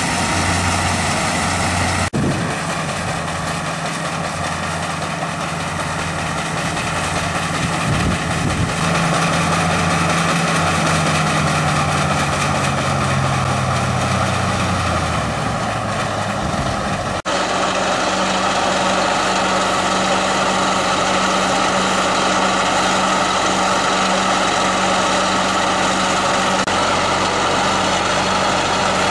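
Braud 2065 combine harvester running steadily. The sound changes abruptly twice where the recording is cut, and its low pitch sags slowly for a few seconds in the middle.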